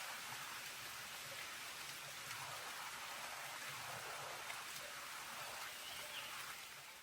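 Steady rain falling, an even hiss with scattered drop ticks, fading out at the very end.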